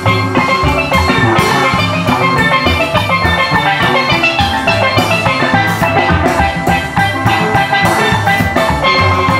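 Steel band playing a jazz tune: steelpans carry the melody over a drum kit keeping a steady beat.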